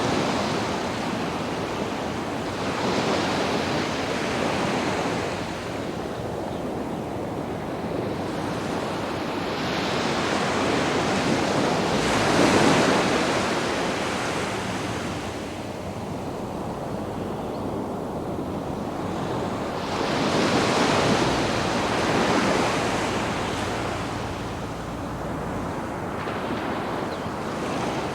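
Sea waves breaking and washing up on a sandy beach, the surf swelling and ebbing about five times, several seconds apart, with the biggest wash about halfway through.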